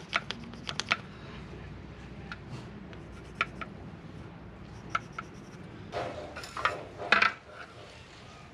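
Scattered light clicks and taps of small hand tools being handled, a quick run of them at the start, with a louder clatter about six to seven seconds in.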